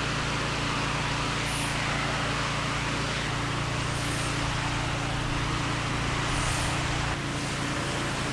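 Pressure washer running steadily, its engine humming under the hiss of the high-pressure water jet rinsing block paving; the sound dips slightly about seven seconds in.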